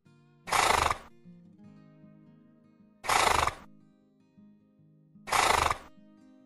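A horse calling three times, each call short (about half a second) and about two and a half seconds apart, over soft background music.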